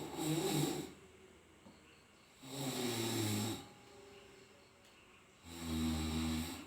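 A person snoring loudly, three snores about three seconds apart, each lasting about a second.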